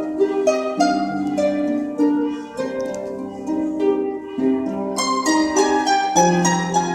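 Harp ensemble playing: several harps plucking overlapping notes and chords that ring on, with a fuller, brighter run of notes about five seconds in.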